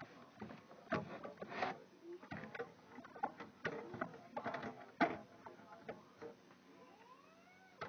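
Irregular clicks, knocks and rattles of computer parts being handled and fitted into a desktop PC case, the loudest knock about five seconds in.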